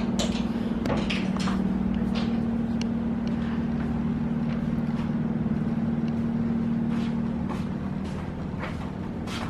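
A motor vehicle's engine running with a steady low hum, with scattered light clicks and rattles over it; the hum eases a little near the end.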